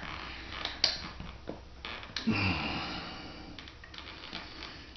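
Sheet vinyl flooring being handled and pressed into place: faint rustling with a few light clicks and knocks, and a short grunt a little over two seconds in.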